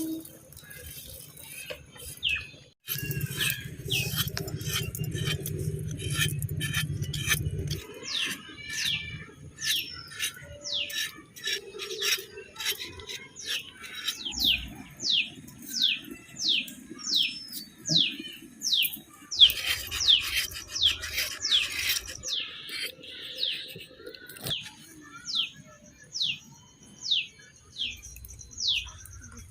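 A bird calling over and over in short, sharply falling high notes, about two a second, over a faint steady high tone. A low rumble runs for a few seconds early on.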